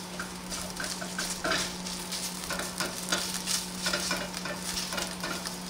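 Onions and garlic sizzling in a pan while tomato paste is stirred into them, a spoon scraping the pan in irregular strokes. A steady low hum runs underneath.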